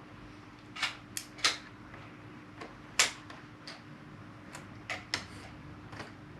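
Plastic Lego Technic pieces clicking and snapping as they are handled and pressed together: a dozen or so sharp, irregular clicks, the loudest about a second and a half and three seconds in.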